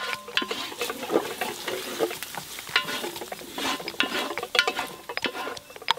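Chopped onions frying and sizzling in a large aluminium pot, with a spatula stirring and scraping against the metal in irregular strokes.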